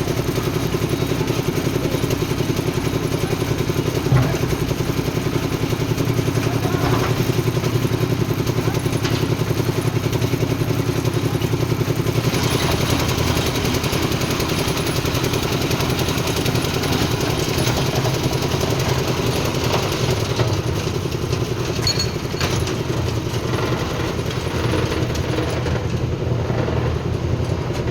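Concrete mixer and concrete lift machine engines running steadily at a slab pour, a constant machine drone with one sharp knock about four seconds in.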